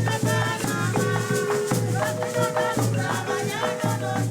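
Latin music with a steady shaker rhythm over a pulsing bass, with a melody line moving on top.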